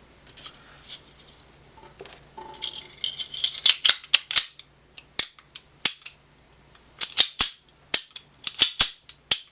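Metal parts of a Makarov pistol fitted with a .22 LR conversion slide being handled and fitted together. About two and a half seconds in come a couple of seconds of sliding and scraping with clicks. After that comes a series of single sharp metallic clicks, several close together.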